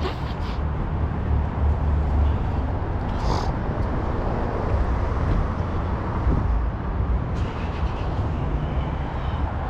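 Vehicle driving: a steady low rumble of engine and road noise.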